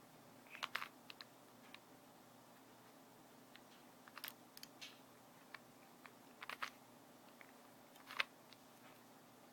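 Faint, irregular plastic clicks and clacks of a Rubik's Cube's layers being turned by hand, in small clusters with short pauses, the sharpest click near the end.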